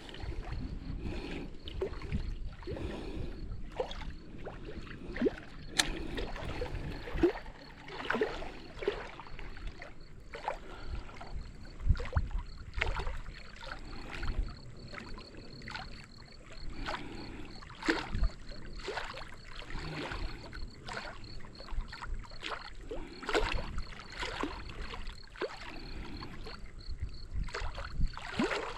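Irregular knocks and clicks, one or two a second, over a steady low background noise.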